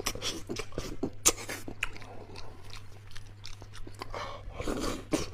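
Close-up chewing and mouth sounds of someone eating braised beef hoof and tendon: irregular wet smacks and clicks.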